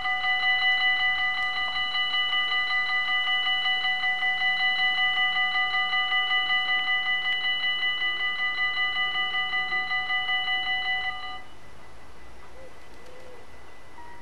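Dutch level-crossing warning bell ringing in quick, even strokes while the barriers lower, warning of an approaching train; it stops suddenly about eleven seconds in, once the barriers are down.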